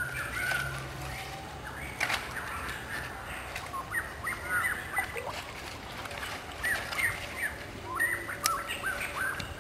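Birds calling outdoors in short, hooked notes that come in quick clusters, mostly in the second half, with a few sharp clicks among them.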